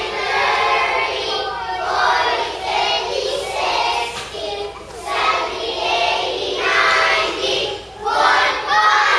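A group of young children singing together in unison, in short phrases about a second long.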